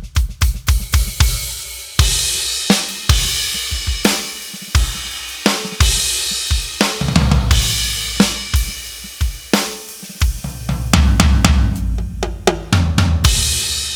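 Roland TD-50X electronic drum kit played as a groove, its sampled sounds heard straight from the module: a dry kick and snare, hi-hat, and crash cymbal hits every couple of seconds, with stretches of heavier low drum hits.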